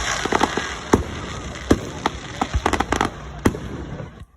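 Fireworks going off: a rapid, irregular series of sharp cracks and bangs over a crackling hiss, the loudest about a second in, near 1.7 s and around three and a half seconds in, then dying away just before the end.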